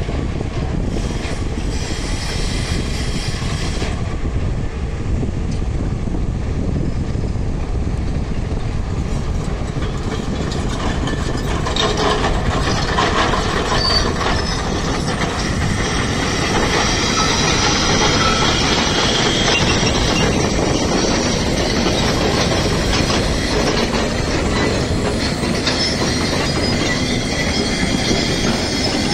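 Hyundai crawler excavators working in a stone quarry: steady heavy-machinery noise with metallic clanking and squealing, louder and harsher from about twelve seconds in.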